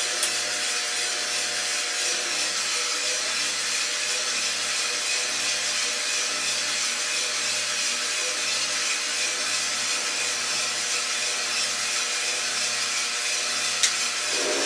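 Coffee roaster running: a steady rushing hiss from its drum and fan, with a faint low hum under it. Two sharp clicks, one just after the start and one near the end.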